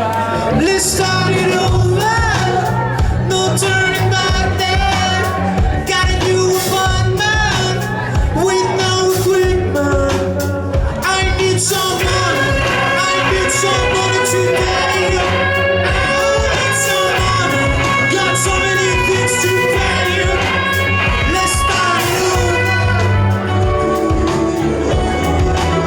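Live rock band playing at full volume, with a singer's voice over guitars, bass and drums.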